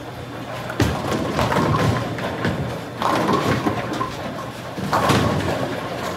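Bowling alley noise: bowling balls thudding onto and rolling down the lanes and pins crashing. A sharp thud comes about a second in, and louder clatters come near three and five seconds in.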